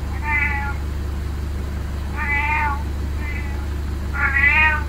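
Domestic cat meowing four times, short high meows, the third fainter than the others. A steady low hum runs underneath.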